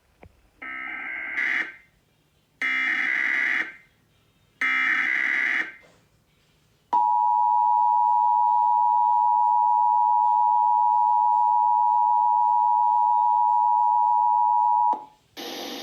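Emergency Alert System header: three roughly one-second bursts of screeching digital data tones, then the steady two-tone attention signal held for about eight seconds before it cuts off. Together they mark the start of an emergency alert, here a nationwide EAS test.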